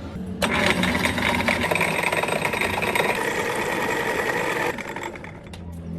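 A small machine running with a fast mechanical rattle. It starts suddenly about half a second in and stops suddenly after about four seconds.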